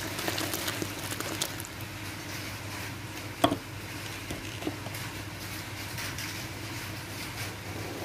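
Hot coconut milk poured from a container onto a heap of rice flour in a metal bowl, splashing and pattering for the first couple of seconds. A single sharp knock comes about three and a half seconds in.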